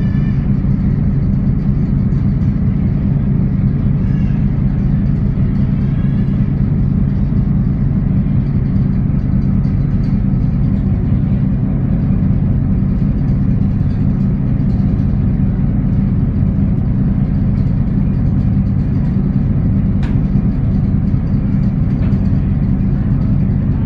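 A ferry's engine droning steadily, a loud, even low hum that holds without change.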